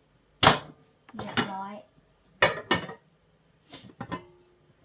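Metal pots, pans and utensils being handled in a kitchen: a series of sharp clanks and clinks, some ringing briefly. The loudest clank comes about half a second in.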